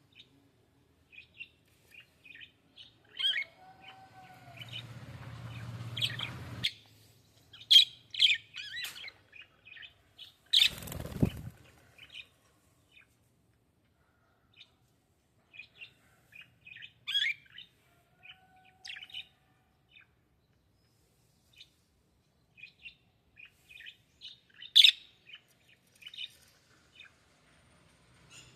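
Small pet birds, budgies, chirping and tweeting in quick short calls throughout, with a brief burst of wing-flapping about eleven seconds in.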